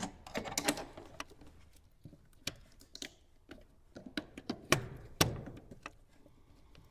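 Scattered clicks, taps and knocks of heavy 4/0 aluminum wires and metal being handled at an electrical panel's lugs, with two louder knocks about five seconds in.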